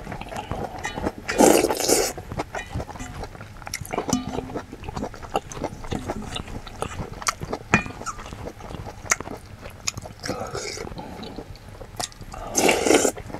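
A person slurping soup and chewing, with small clicks of a wooden spoon against a stainless steel bowl; two loud slurps, one about a second and a half in and one near the end.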